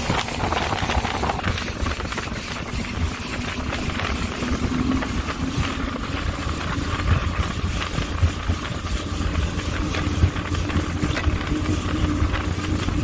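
Evinrude E-TEC 150 two-stroke outboard running under way, its pitch climbing slightly as the boat gathers speed. Over the engine come frequent knocks and rattles from the aluminium hull slapping through chop.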